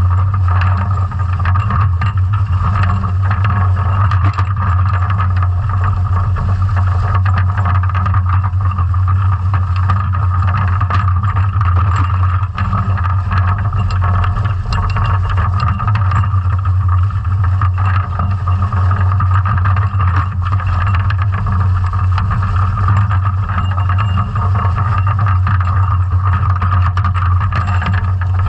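Scallop dredge being towed along the seabed, heard from on the dredge underwater: a steady low drone with constant small clicks and knocks as the dredge's twine top and steel ring bag drag over the bottom.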